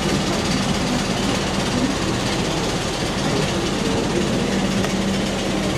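Steady hum and air rush inside an Airbus A321 cabin parked at the gate during boarding, with a low steady drone underneath.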